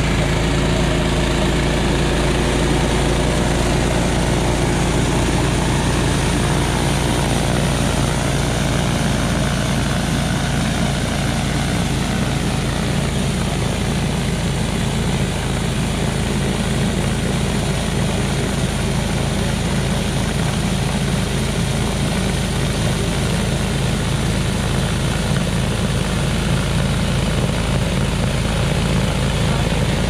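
Honda HSS928 two-stage snowblower running steadily under load, its single-cylinder 270 cc engine working with the auger and impeller churning and throwing heavy wet snow and slush.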